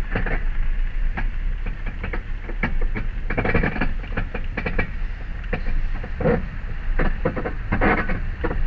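Honda Fit making a grinding noise while driving: uneven scraping strokes, a few a second, over a steady low rumble. New brake pads have not cured it, and it is pretty bad.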